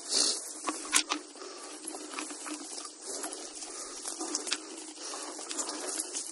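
Irregular rustling and crackling of dry leaf litter and dirt, with scattered small clicks and one sharp click about a second in.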